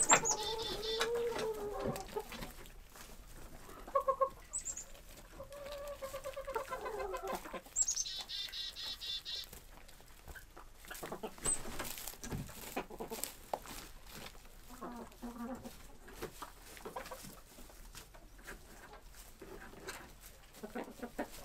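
A flock of hens clucking and calling, with several louder, drawn-out calls in the first half and softer, scattered clucks after.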